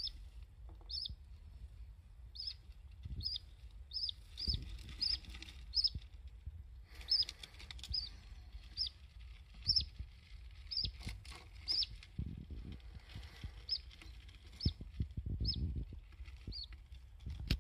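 Budgerigar in a nest box giving short, high chirps, roughly one a second, over low rumbling with a few scattered knocks.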